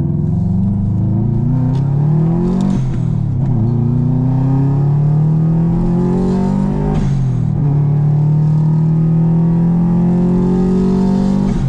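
2002 Subaru WRX's turbocharged flat-four accelerating through the gears through a Spec-D catback exhaust run with only its resonator, no silencer. The engine note climbs steadily and drops at each upshift, three times.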